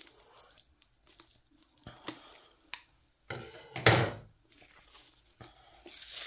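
Tape on a rolled canvas tube being cut and pulled off, with small clicks and handling knocks, and a louder rip with a thump about four seconds in.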